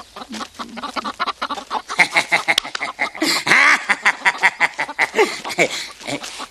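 Hens cackling and squawking, many calls overlapping, loudest in the middle.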